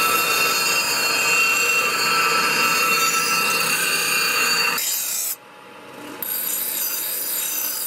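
Steel knife blade, forged from truck leaf-spring steel, being ground against a spinning grinding wheel: a steady harsh rasp with a thin high whine over it. About five seconds in the sound drops away suddenly, then the grinding comes back quieter.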